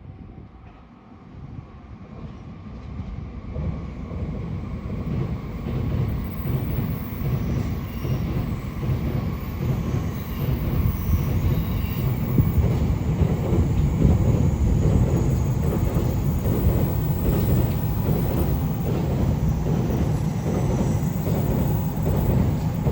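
A 185-series electric train approaches and passes close by, its wheels clattering over the rail joints. It grows louder over the first few seconds, then stays loud as the carriages go past.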